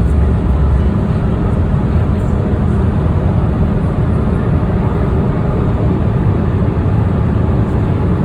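Boeing 787 Dreamliner in flight, heard from inside the cabin: a steady, loud low rumble of engine and airflow noise.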